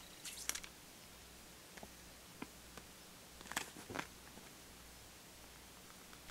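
Quiet room tone with a few faint rustles of a folded paper booklet being handled: short clusters about half a second in and again around three and a half to four seconds.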